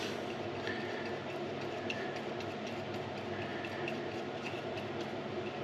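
Faint small taps and scrapes of a brush dabbing epoxy resin onto bare sanded wood, wetting it out before fibreglassing, over a steady low hum.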